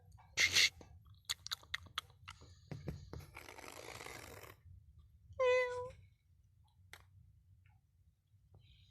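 A domestic cat meows once, short and steady in pitch, about five and a half seconds in. Before it come a few quick clicks and a stretch of soft rustling.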